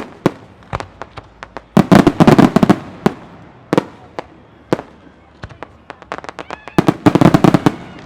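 Aerial firework shells from a professional display going off in a string of sharp bangs and cracks, with two dense volleys of rapid crackling about two seconds in and again about seven seconds in.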